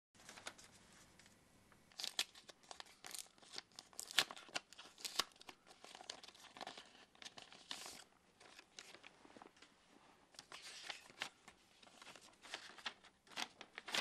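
Paper handled close up: an envelope torn open and a folded letter unfolded, in short, irregular rustles and tearing crackles.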